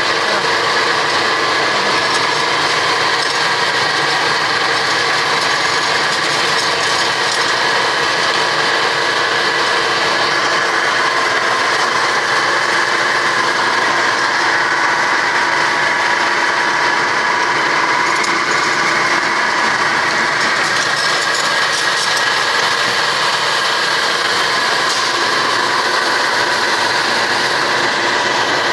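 Single-phase 220 V cassava peeling machine running steadily.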